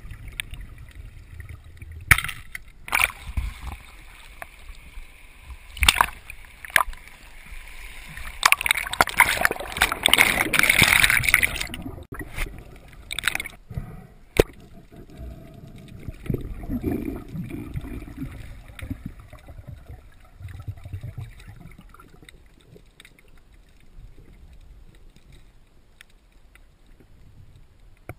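Underwater audio through an action camera's waterproof housing: water swishing past, with sharp clicks and knocks, busiest and loudest in the first half. It then settles to a quieter, muffled low rumble.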